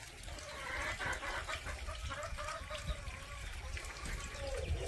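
Pungsan puppies growling as they play-fight, a wavering growl running almost without break that dips in pitch near the end.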